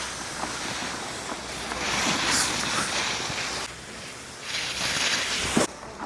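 Edges scraping and hissing across snow in two long surges while riding down a ski slope, with wind on the microphone; the second surge ends in a short thump and cuts off suddenly.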